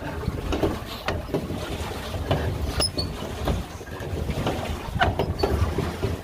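Wind rumbling on the microphone aboard a small boat on a lake, with irregular short knocks and splashes.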